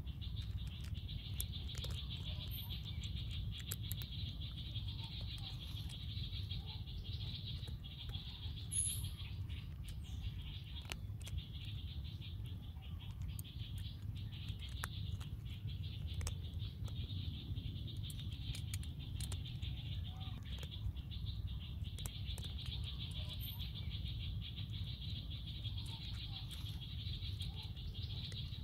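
Forest ambience: a steady, high-pitched insect drone over a low rumble, with scattered faint clicks.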